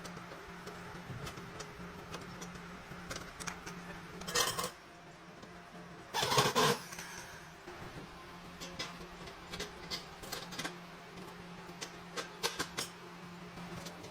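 Scattered clicks and light metal clinks from metal parts being handled during stove fabrication, with two louder short noisy bursts about four and six seconds in, over a steady low hum.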